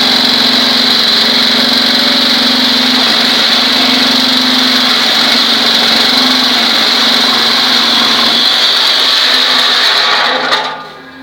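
Cinder block vibro-press machine running its vibrators: a loud, steady mechanical buzz that stops near the end.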